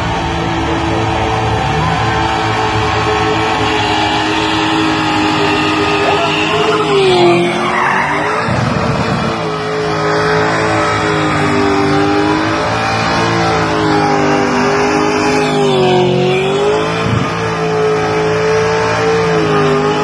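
Burnout car's engine held at high revs while the spinning rear tyres squeal and smoke. The engine pitch dips briefly twice, about seven seconds in and again about sixteen seconds in, then climbs back.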